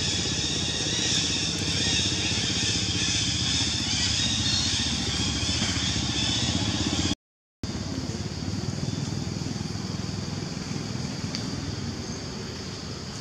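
Steady outdoor background: a low engine-like rumble under a high hissing buzz. It drops out to silence for a moment about seven seconds in, then returns a little quieter.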